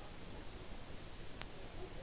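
Low, steady room hiss with a single short click about one and a half seconds in.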